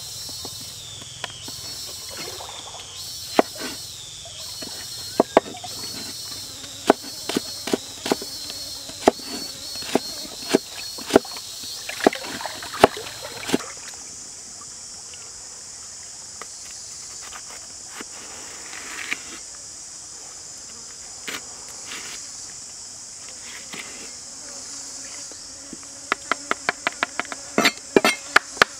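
Kitchen knife striking a wooden cutting board: irregular single cuts through slices of carrot in the first half, then a fast run of chopping near the end, about five strokes a second. Insects buzz steadily underneath throughout.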